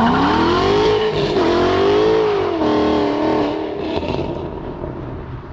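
A 2012 Mustang Boss 302's 5.0-litre V8 accelerating hard at wide-open throttle. The engine note climbs steeply, drops at upshifts about a second and a half and two and a half seconds in, then pulls on and fades away.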